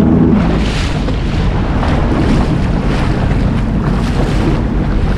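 Jet ski running through choppy water, with wind buffeting the microphone and water splashing against the hull in short, repeated bursts.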